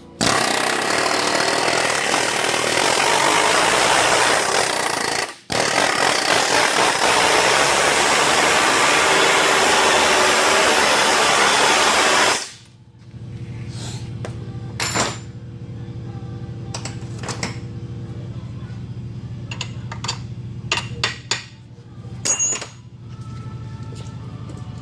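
Pneumatic air chisel (air hammer) with a rivet-setting tool hammering the rivets of an upper ball joint into the control arm: one run of about five seconds, a brief pause, then about seven seconds more before it stops. Afterwards a few scattered sharp knocks over a low steady hum.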